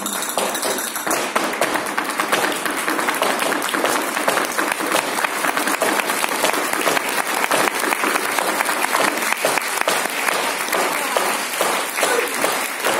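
Large theatre audience applauding, a dense steady clapping of many hands. The music stops about a second in.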